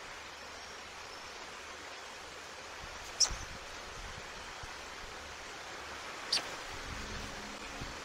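Steady outdoor background hiss, broken twice by a short, sharp high-pitched tick, about three seconds in and again about six seconds in.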